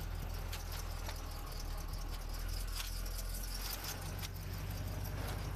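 Irregular footsteps crunching on gravel over a low steady hum.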